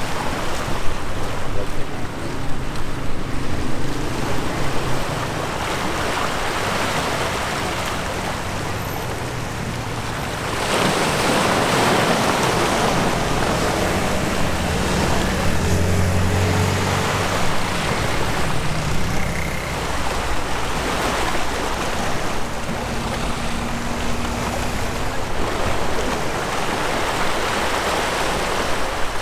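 Waves washing on the shore and wind on the microphone, with a low engine drone from passing ships. The water noise grows louder about ten seconds in.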